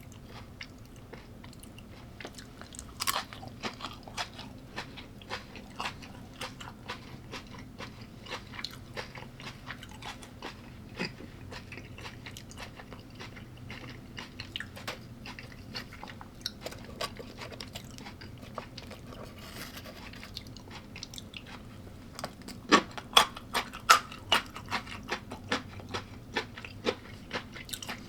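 A person chewing and crunching food close to the microphone: a steady run of small crisp crunches, with a burst of louder crunchy bites near the end.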